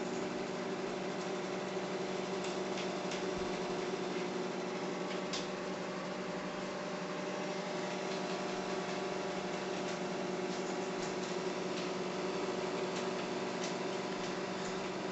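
Microwave oven running with a steady hum, with a few faint ticks.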